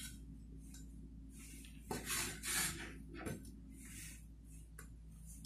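Faint scrapes and light taps of a cleaver blade against a ceramic plate as chopped scallions and coriander are pushed off it, a few soft sounds spread over several seconds, over a faint steady low hum.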